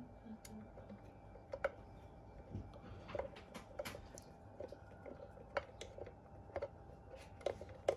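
Small nut being worked onto its thread inside a metal detector's handle housing: irregular light clicks and ticks of metal and plastic, about two a second, over a faint steady hum.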